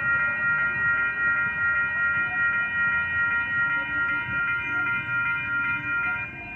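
Railroad grade-crossing warning bells ringing with a steady pulse, cutting off about six seconds in as the crossing clears after the train has passed.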